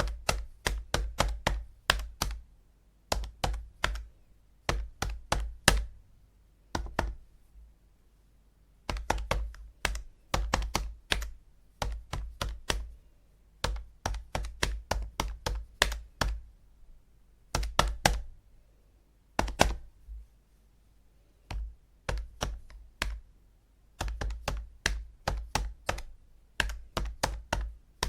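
Calculator buttons being pressed in quick runs of several clicks, with short pauses between the runs.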